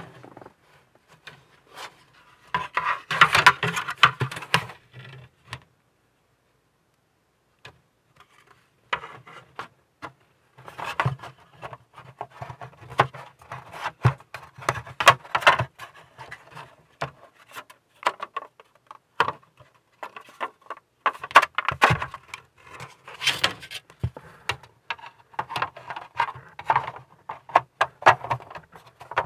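Plastic ship-model hull parts being handled and test-fitted by hand: light clicks, taps and the rubbing of plastic on plastic. The sounds stop for a few seconds at about five seconds in, then come thickly again.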